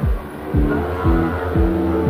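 Background music with a steady kick-drum beat, about two beats a second, under held chords that change every beat or two; it dips briefly just at the start.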